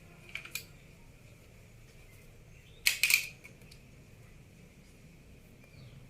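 Sharp clicks from a hand tool working on a Cat 6 network cable: two light clicks, then a loud cluster of snaps about three seconds in. A faint steady high whine runs underneath.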